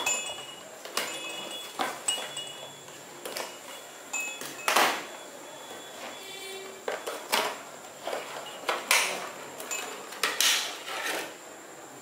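Cardboard box flaps and a clear plastic tray rustling and clicking as a roly-poly tumbler doll is unpacked, with short bell tones from the doll's built-in chime as it is moved, mostly in the first few seconds.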